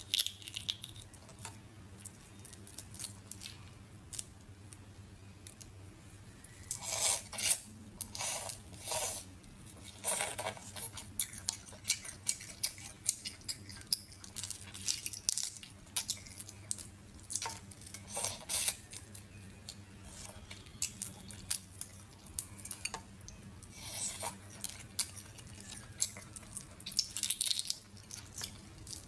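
Cooked crayfish shells being cracked and peeled by hand in thin plastic gloves: irregular crackles, snaps and rustles that come in clusters, with quieter stretches between.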